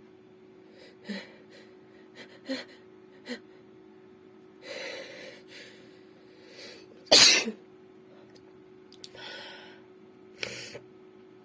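A woman's sneeze: a few short catching breaths and a longer drawn-in breath build up to one loud sneeze about seven seconds in, followed by two breathy exhales or sniffs.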